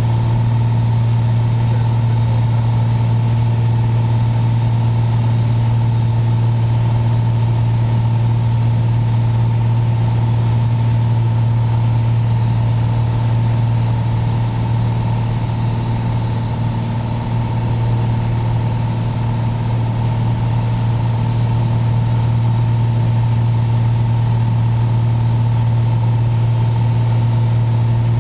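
Piper Saratoga's six-cylinder Lycoming engine and propeller running steadily in flight, heard from inside the cabin. It is briefly a little quieter about halfway through.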